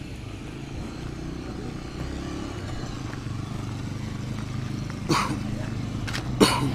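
A motorcycle engine running close by, its low hum slowly growing louder. Two short sharp noises cut across it, about five and six and a half seconds in, the second the loudest.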